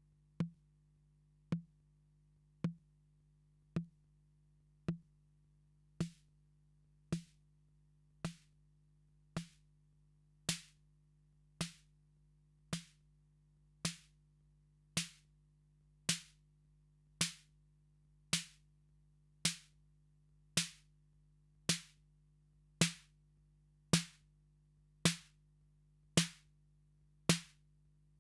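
Roland TR-808 drum machine snare, dry, struck about once a second. Each hit is a short low tone with a burst of noise on top. The noise grows brighter and the hits louder over the course of the run as the snare is swept through its range.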